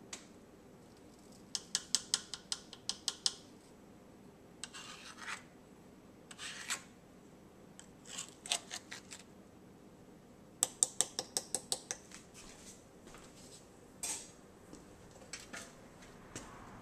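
A spoon scraping through sticky sauce on pork ribs and clicking against the slow cooker pot, with two runs of quick clicks, a couple of seconds in and again past the middle.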